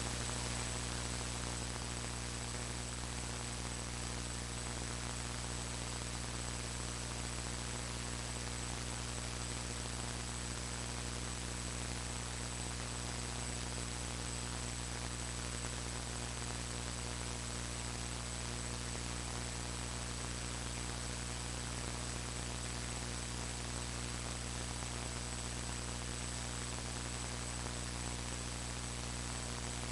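Steady electrical hum and hiss with a faint high-pitched whine: noise from a faulty sound recording.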